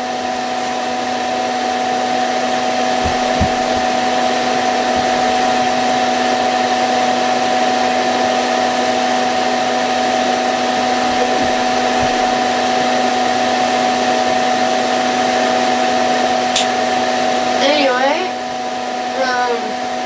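Pelonis disc furnace space heater's blower fan running steadily with a constant hum, on the fan setting while its disc heating elements cool off.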